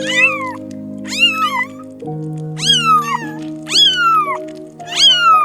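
A cat meowing over and over, five arched meows about a second apart, over background music with long held low notes.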